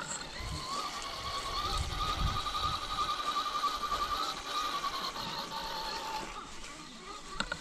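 Electric motor and gear drivetrain of an RC crawler truck whining as it drives over pine needles, the pitch wavering up and down with the throttle; the whine fades out about five seconds in, and a few sharp clicks come near the end.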